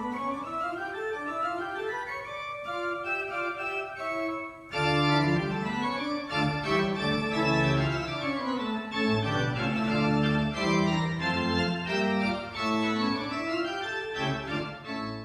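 Church pipe organ playing a piece in full chords with a moving melody. About five seconds in it grows louder as deep bass notes join, and it breaks off abruptly at the end.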